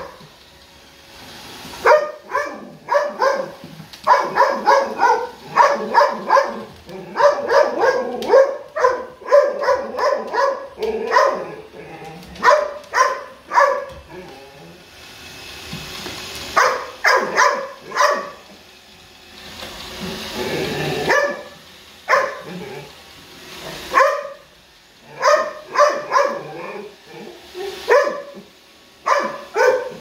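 Golden retriever barking at a Roomba robot vacuum, in quick runs of short barks with a few short pauses.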